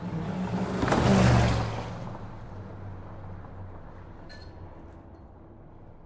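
Muscle car speeding past: engine and tyre noise swell to a loud peak about a second in, then fade slowly as it moves away. A short high chirp comes about four seconds in.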